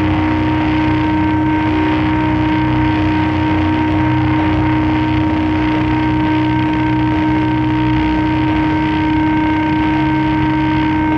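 Sludge doom drone: a loud, unbroken wall of distorted, rumbling noise with a few held tones ringing through it and no drums.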